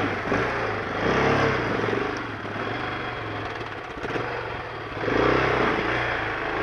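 Off-road motorcycle engines: one idling steadily, with two bursts of revving, about a second in and again after five seconds. The revving fits the trail bike that is bogged down in a muddy, water-filled rut being driven out.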